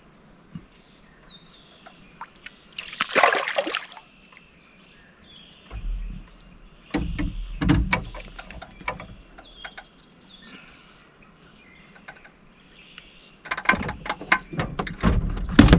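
A hooked bream splashes at the surface about three seconds in as it is reeled to the boat, followed by low knocks and then a run of quick clicks and thumps against the boat as the fish is handled near the end.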